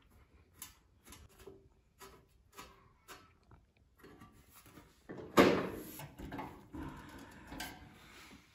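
Small metal clicks and scrapes as step bolts are hand-threaded into a steel griddle side shelf. About five seconds in comes a loud metal clatter and rattle as the shelf is handled against the griddle's frame.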